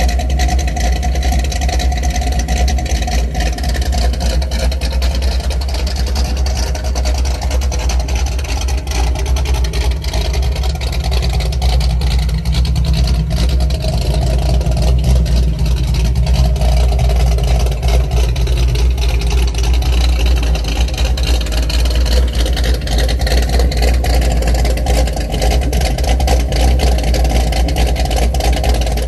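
V8 exhaust of a second-generation Pontiac Firebird Trans Am through Karnage Bandit Series mufflers and dual tailpipes, running steadily at idle with a deep, rapidly pulsing rumble.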